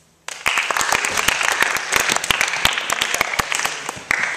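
An audience applauding. The clapping starts abruptly just after the start, is dense and loud, and thins out near the end.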